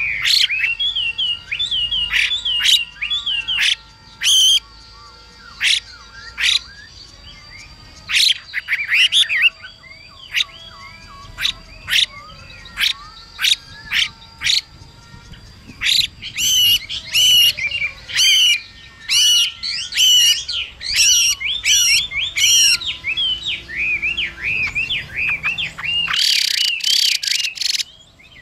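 Chinese hwamei singing a rapid, varied song of whistled phrases broken by sharp harsh notes. Near the end comes a burst of harsh hissing calls, the female hwamei's 'xùy' used to provoke a male into singing.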